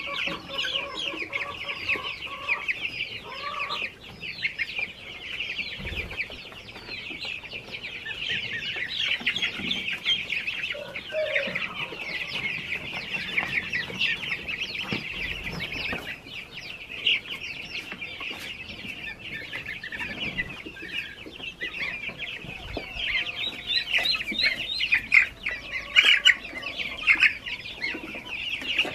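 A flock of young chicks and goose goslings peeping: a dense, unbroken chorus of short, high cheeps from many birds at once.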